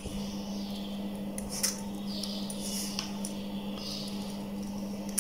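Quiet handling of a potentiometer and multimeter test probes, with a light click about one and a half seconds in, over a steady low hum.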